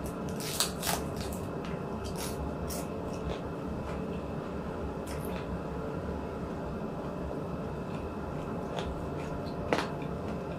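Close-miked eating sounds: scattered wet mouth clicks and smacks of chewing, a few sharp, over a steady background hum.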